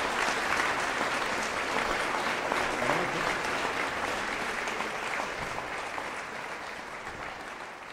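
Audience applauding, growing gradually quieter toward the end.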